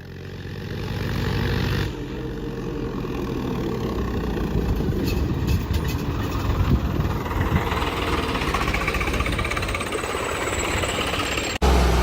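Diesel tractor engines running hard at full throttle, straining against each other in a tug-of-war pull. The sound grows louder over the first couple of seconds, then holds steady and rough, and drops out briefly near the end.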